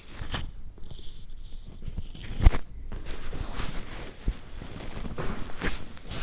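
Spinal manipulation by hand: clothing rustling and hands shifting on the back, then one sharp crack about two and a half seconds in as the thrust is given, with a few fainter clicks after.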